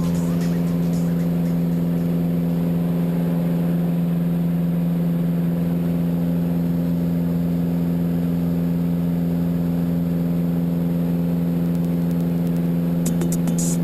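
A single-engine propeller airplane's piston engine and propeller running at steady power in flight, heard from on board as an even, unchanging hum.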